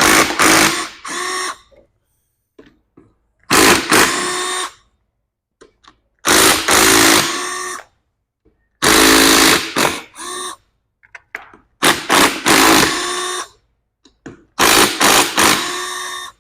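Cordless power driver with an Allen bit running in six short bursts of a second or two each, spinning out the power valve bolts on a Polaris 850 two-stroke engine.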